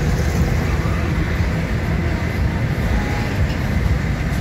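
Steady rumble of engine and tyre noise inside a car's cabin at highway speed.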